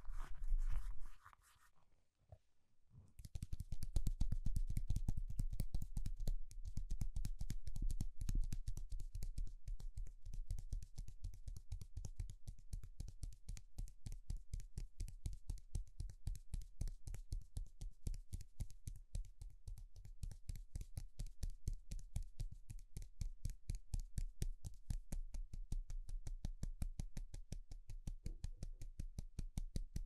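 Close-up scratching on the wooden handle of a plunger with a knitted work glove, in rapid, even strokes. It starts about three seconds in, after brief handling noise and a short pause.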